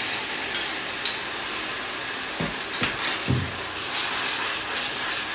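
A hot oil tempering of mustard seeds, asafoetida and turmeric sizzles steadily as boiled moong beans go into the steel pot. A few knocks of a spoon against the pot come as the beans are stirred in.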